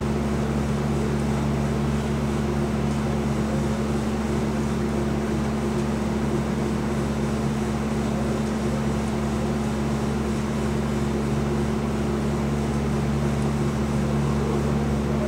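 A steady low hum under an even hiss, with no sudden sounds.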